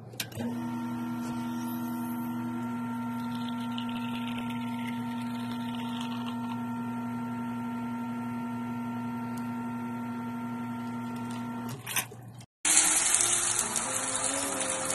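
Espresso machine's pump running with a steady hum while a shot is pulled, cutting off about twelve seconds in. After a short gap, an espresso grinder grinds coffee beans with a louder, harsher noise for a couple of seconds.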